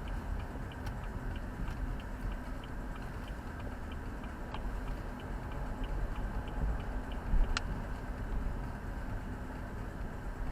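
Low, steady rumble of a car's engine and road noise, with a regular light ticking about three times a second and one sharp click about seven and a half seconds in.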